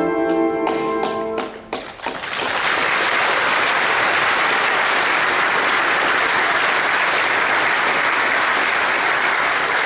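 A jazz big band's final chord rings and stops about a second and a half in; then a large audience bursts into steady applause.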